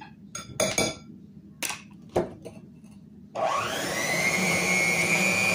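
A few light clicks and taps, then about three seconds in an electric hand mixer switches on. Its motor whine rises quickly and settles to a steady speed as the beaters whip eggs and sugar.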